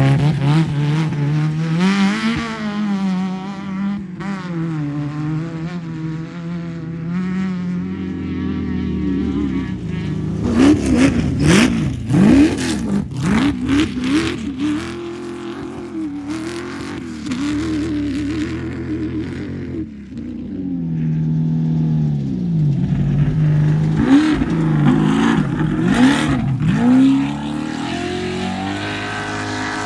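Off-road race vehicle engines running and revving hard, the pitch rising and falling with the throttle. There are two louder spells of sharp revving, about a third of the way in and again near the end.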